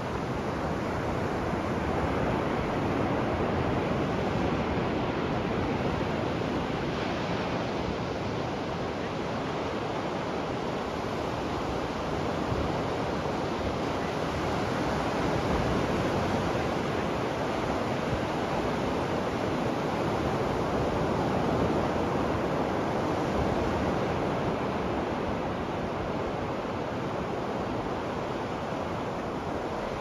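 Ocean surf washing onto a beach: a continuous hiss and rumble of breaking waves that swells gently in loudness now and then.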